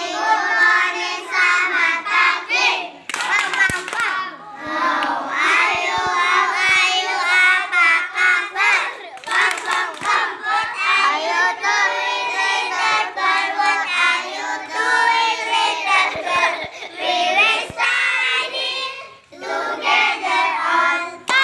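A group of children singing together in high voices, with some hand clapping.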